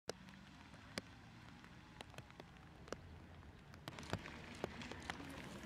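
Light rain: scattered drops ticking irregularly, sparse at first and coming more often after about four seconds, over a faint low rumble.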